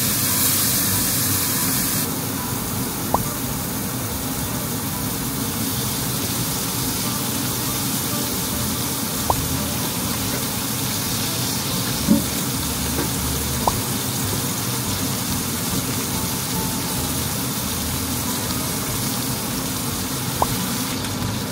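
Ribeye steak sizzling steadily in hot oil and butter in a frying pan, with a few sharp clicks of a spatula and tongs against the pan.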